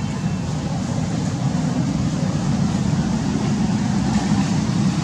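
Steady low rumble of road traffic, growing slightly louder.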